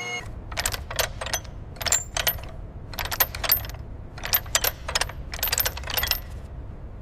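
Light metallic clicks and clinks in quick clusters of two to four, over a steady low rumble.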